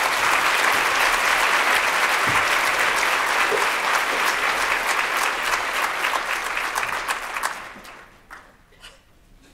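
Large audience applauding steadily. The applause dies away about three-quarters of the way through, leaving a few last scattered claps.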